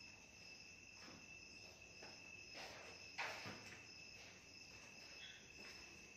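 Crickets chirping, a faint steady trill with a pulsing higher note, with a few soft scuffs or steps, the loudest about three seconds in.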